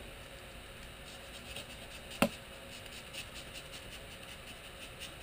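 Utility knife blade cutting into rigid pink foam insulation board, a string of faint, short scratchy strokes. One sharp click about two seconds in.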